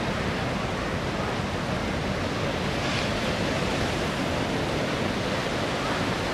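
Steady, even rumbling noise of a Sikorsky MH-53E Sea Dragon helicopter's rotors and turbines in flight, mixed with wind on the microphone.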